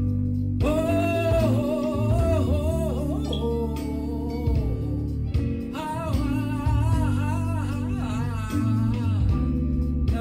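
Gospel song: a solo voice singing two long phrases over bass and guitar.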